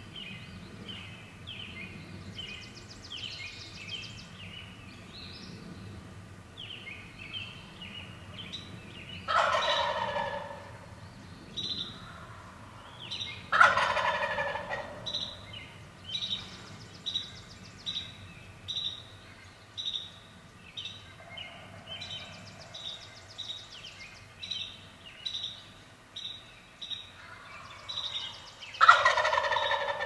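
Wild turkey gobbling, three loud calls of about a second each: two close together partway through and one near the end. Behind them, a spring dawn chorus of small songbirds chirps and repeats short, evenly spaced notes.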